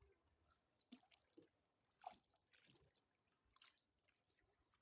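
Near silence, broken by a few faint brief ticks about a second in, at about two seconds and at about three and a half seconds.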